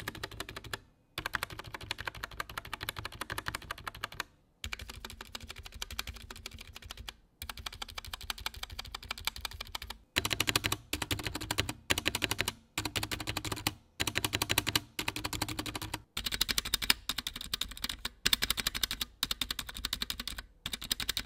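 Typing on an Anne Pro 2 60% mechanical keyboard with Kailh Box Brown tactile switches, fitted with an aluminum case and cherry-profile keycaps. Runs of rapid keystroke clacks are broken by brief silences, and the strokes are louder and deeper in the second half.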